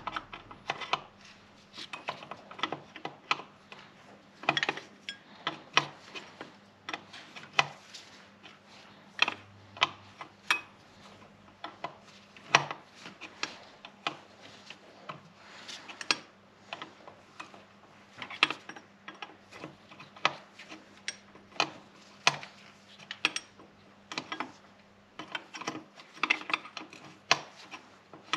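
Hand tools working on metal: irregular sharp clicks and clinks of a ratchet and wrenches as parts are unbolted in an engine bay, over a faint steady hum.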